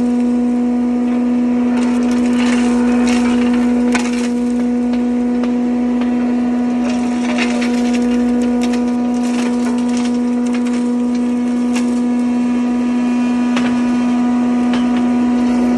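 Electric rock salt grinder running with a steady hum, with irregular cracks and crackles of salt being crushed inside the grinding chamber.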